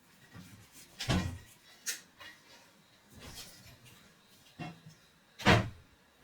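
Containers and food items being handled and set down in a refrigerator: a few short knocks and clatters, the loudest near the end.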